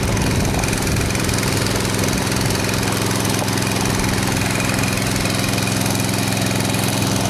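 Small gasoline engine of a floating suction gold dredge running steadily at a constant speed, driving its pump.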